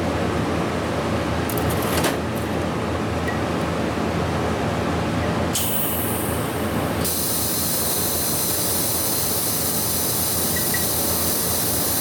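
Welding on a Harley shovelhead engine case: a steady hiss with a low hum, and a sharper, higher hiss coming in about six seconds in that then holds.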